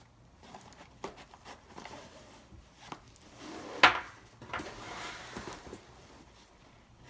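Alienware Vindicator 2.0 laptop backpack being handled: fabric rustling and small knocks as its compartments are opened, with one sharp knock on the hard-shell front panel about four seconds in.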